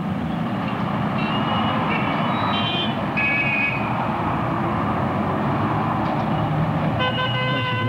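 Busy street traffic: a steady wash of engine and tyre noise, with short high tones a second or two in and a car horn sounding near the end.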